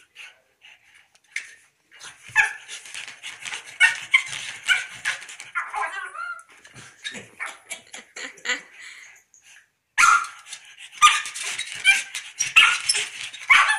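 A pug whining and giving short yips and barks in two bouts, the second starting about ten seconds in: fussing to get its toy back.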